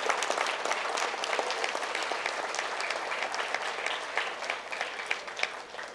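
Audience applauding, a dense patter of many hands clapping that thins out and dies away near the end.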